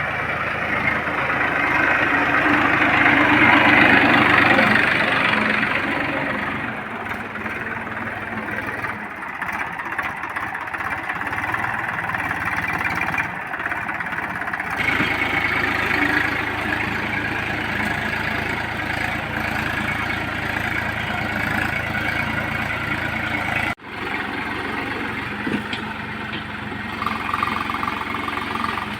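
Massey Ferguson 1035 tractor's three-cylinder diesel engine running steadily under load while pulling a disc plough through hard soil, loudest in the first few seconds. The sound breaks off for an instant about three-quarters of the way through.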